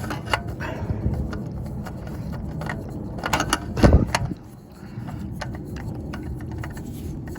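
Scattered clicks and knocks from hands and parts being handled while a new oil filter is fitted under the car, over a steady low rumble. The loudest knock comes about four seconds in.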